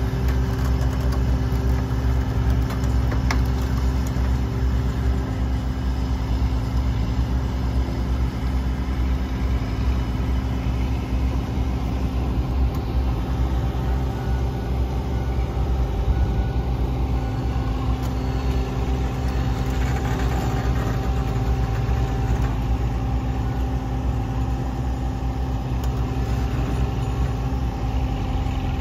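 Heavy diesel engine idling steadily, low and unchanging.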